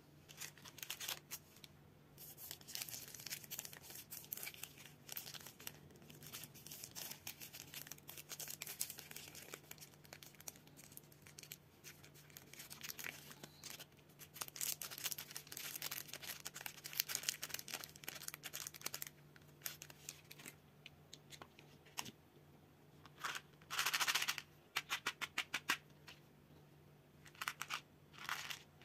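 Plastic candy-bar wrapper crinkling and crackling in the hands, with some tearing, in dense runs of sharp crackles. A lull comes about two-thirds through, then a few louder crackling bursts near the end, over a faint steady low hum.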